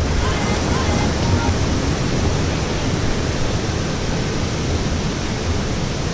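Steady rushing noise with a low rumble from an alpine coaster cart rolling down its metal track: wind buffeting the microphone as the cart moves.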